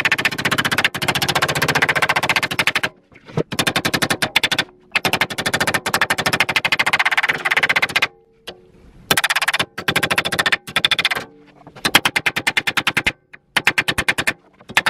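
Small metal planishing hammer tapping rapidly on the sheet-metal lip of a sill panel clamped in a steel jig, in quick runs of blows broken by short pauses. This is the lip being shrunk in around a curve: the gathered tucks are planished flat against the back of the jig, which acts as a dolly.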